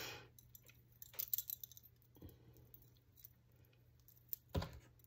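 Metal bangle bracelets clinking and jingling faintly as they are worked onto a wrist, in scattered small clicks, with a soft thump about four and a half seconds in.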